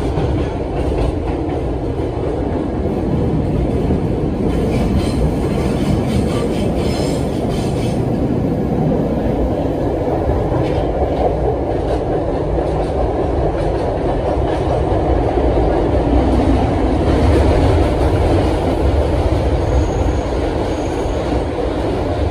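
Budd R32 subway car running along the track, heard from inside the car: a steady, loud rumble of wheels and running gear with stretches of rattling clatter, getting louder for a few seconds about two-thirds of the way through.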